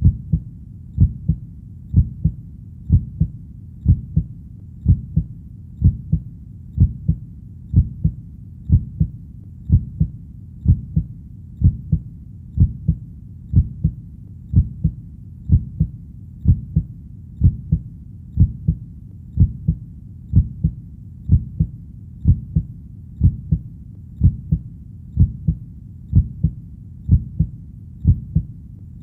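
Heartbeat, each beat a low double thump (lub-dub), repeating steadily at about one beat a second.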